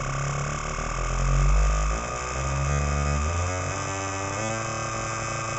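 MFOS Alien Screamer noise box, a small DIY analog synth circuit, droning and buzzing through speakers with its LFO frequency turned up high, almost into ring-modulation tones. The pitches shift in a few steps as a knob is turned, about two, three and four seconds in.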